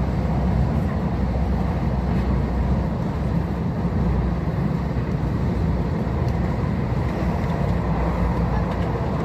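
Steady rumble of a TGV high-speed train running along the line, heard from inside a passenger car.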